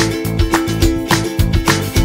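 Background music with a quick, steady beat of plucked notes.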